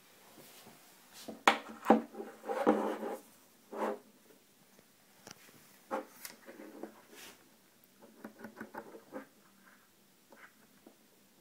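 Handling noise from an Askania Taifun chronograph wristwatch: a few sharp knocks and scraping in the first seconds as it is moved about and set down on a hard surface, then a quick run of small clicks as fingers work its rotating bezel.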